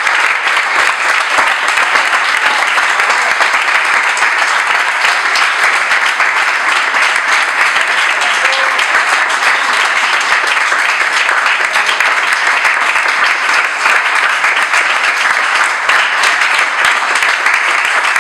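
A small audience applauding: dense, steady clapping.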